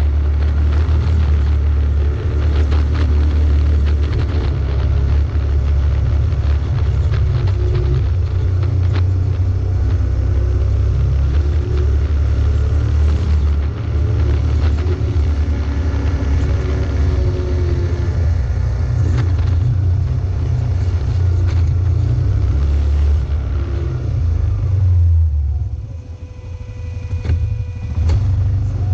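Off-road vehicle engine running under load as it climbs a rough dirt road, with a heavy low rumble and rattles and knocks from the rocky surface. About 25 s in it eases off briefly, leaving a steadier engine note, then picks up again near the end.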